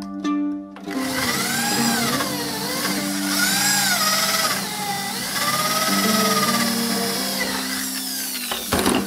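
Electric drill boring through a thin steel plate held down on a wooden block, starting about a second in and stopping near the end, its motor pitch rising and falling as the load changes.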